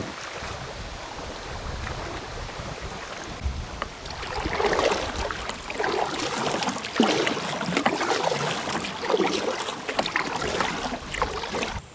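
Steady water noise, then from about four seconds in, water splashing and slapping against the plastic hull of a Pelican Catch120 fishing kayak roughly once a second as it is paddled across choppy water.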